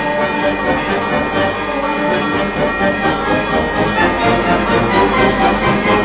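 Brass band playing: trumpets and trombones sounding held notes together, steadily throughout.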